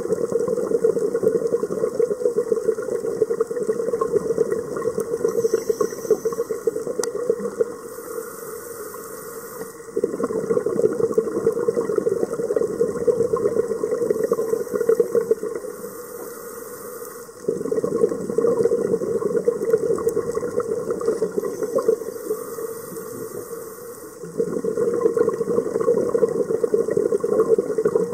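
A scuba diver breathing through a regulator underwater: a loud, steady rush of exhaled bubbles that breaks off for about two seconds three times, about every seven seconds, for a quieter inhalation with a faint high hiss.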